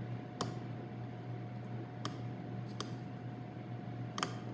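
A steady low hum with about four light, sharp clicks and taps spread through it, as hands pinch and handle stiff clay coils on a work table.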